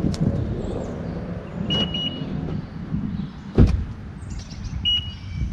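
A Honda Civic sedan's door being opened: latch clicks, then a heavy thump a little past halfway, with two short high beeps, one about two seconds in and a briefer one near the end.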